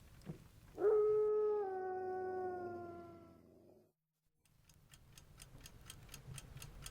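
A single long werewolf howl, a film sound effect. It starts about a second in, holds its pitch, then slides slightly lower and fades out. After a moment of silence, faint quick ticking follows at about five ticks a second.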